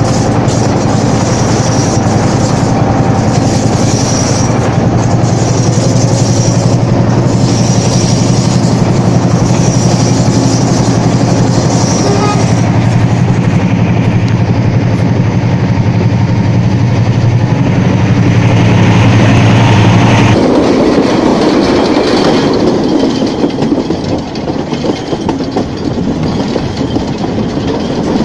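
Diesel-hauled passenger train in motion, heard from an open carriage door: a steady diesel locomotive drone over wheels running on the rails, with a regular clickety-clack. About two-thirds of the way through the drone gives way to a broader rumble of carriage wheels behind a double-headed Class M6 (EMD G22M) train.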